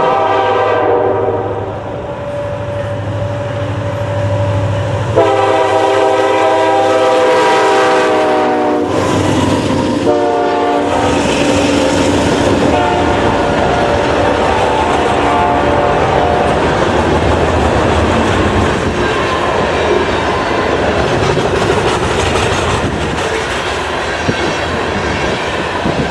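Diesel freight locomotive's multi-tone air horn sounding the grade-crossing signal: a blast that ends about a second in, then a long one, a short one and a long one, over the engine's drone. After the horn the train keeps rolling past with a steady rumble of wheels on rail.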